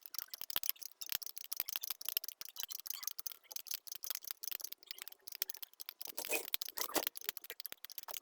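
Rapid, irregular light clicks and ticks throughout, sharp and high-pitched, with no steady tone or engine running.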